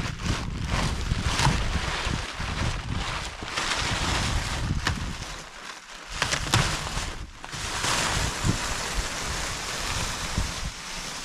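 Wind buffeting the microphone, a heavy low rumble under a steady hiss with scattered clicks and crackles.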